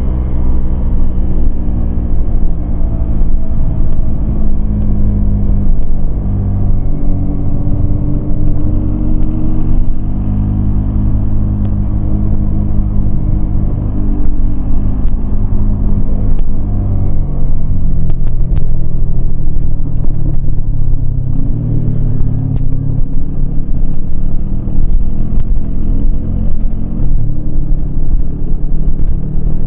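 Yamaha MT-25 parallel-twin engine heard from the rider's position while under way, its pitch sinking and climbing as the throttle is opened and closed.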